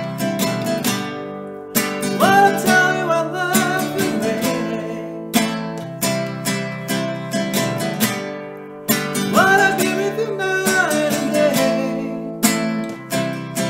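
Nylon-string classical guitar strummed in a steady rhythm, with a man singing over it: two sung phrases of held, wavering notes, one a couple of seconds in and one near the end.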